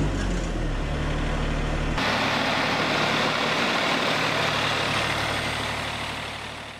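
Wood-Mizer LT40 Wide portable band sawmill running: a steady engine hum, which changes abruptly about two seconds in to the steady hiss of the band blade cutting through the log. The hiss fades out near the end.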